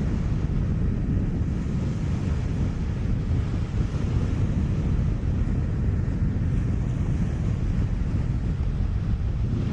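Steady wind rumbling on the microphone over the wash of small waves breaking on the shore.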